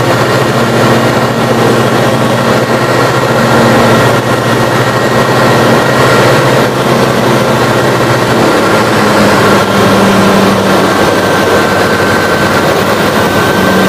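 Light aircraft's engine and propeller heard from inside the cabin in cruise flight: a loud, steady drone. A little past halfway the engine note shifts slightly lower.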